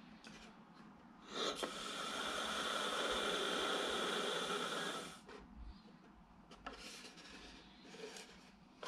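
Air rushing through the balloon mechanism of the 1977 'Elementary Poetry' kinetic box as the balloon inside inflates and goes limp again: a steady hiss that swells over the first second, holds for a few seconds and then stops fairly abruptly. A few small handling clicks follow.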